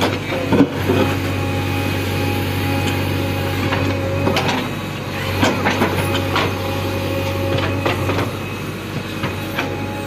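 Backhoe loader's diesel engine running steadily, with scattered knocks and clanks, several of them between about four and eight seconds in.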